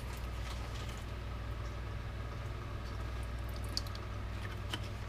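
A splash of white wine vinegar poured faintly from a glass bottle into a small metal saucepan, over a steady low hum. A couple of light clicks of the bottle and its cap come near the end.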